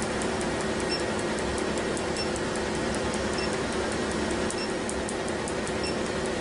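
Tattoo-removal laser firing a steady train of sharp snapping pulses, about four a second, over the continuous hiss of the cold-air skin cooler blowing on the treated area.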